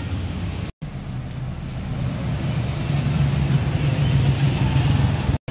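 Street traffic: a low, steady rumble of vehicle engines running close by, with an engine hum that grows stronger in the second half. The sound drops out completely for a moment twice.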